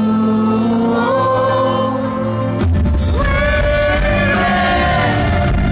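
Live concert music: singing over band accompaniment with held chords between sung lines. About two and a half seconds in, a heavier bass and percussion come in and the music gets fuller.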